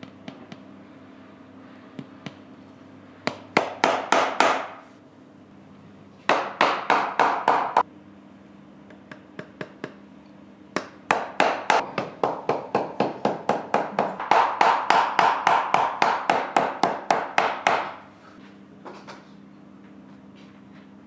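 Small hammer tapping rapidly on a shoe sole, about four to five blows a second, in three runs, the last and longest lasting several seconds. A faint steady hum lies underneath.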